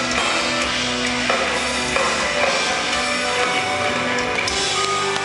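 Metal band playing live: distorted electric guitars holding chords over a drum kit.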